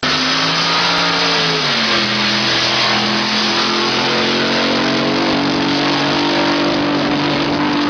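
Drag boat engine running hard at high revs. Its pitch drops about two seconds in, then climbs again in several steps.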